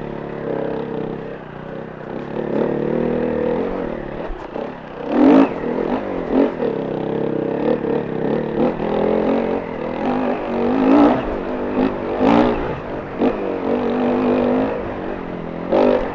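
Enduro motorcycle engine running and revving up and down as it rides off-road, with several short, sharp clattering bangs, the loudest about five seconds in and again around eleven and twelve seconds.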